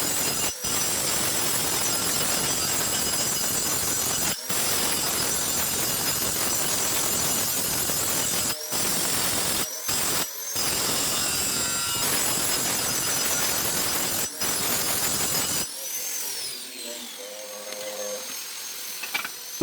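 Angle grinder grinding steel on a leaf spring repair: a loud, steady hiss with a few brief breaks. It is switched off about three-quarters of the way through and its whine falls away as it winds down.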